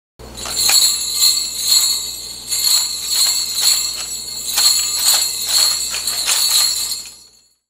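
Several handheld jingle-bell charms shaken together in a steady rhythm, about two shakes a second. The jingling starts just after the beginning and fades out near the end.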